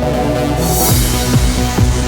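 Electronic dance music: held synth chords, then about half a second in a rising hiss swells up and a steady kick drum comes in at about two beats a second.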